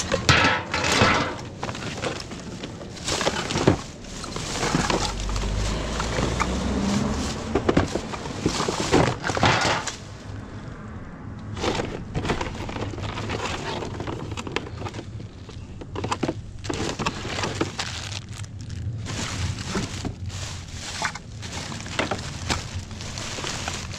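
Irregular clattering, crunching and rustling of objects being handled and knocked together, as when rummaging through discarded rubbish, with frequent sharp knocks and a short lull a little before the middle.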